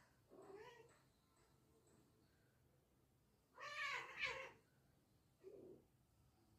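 A cat meowing: three separate calls, a short one near the start, a louder, longer one a little past the middle, and a short low one near the end.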